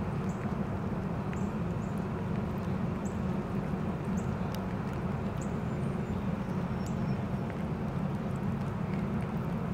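Steady outdoor background rumble, with a scattering of faint, brief high chirps through it.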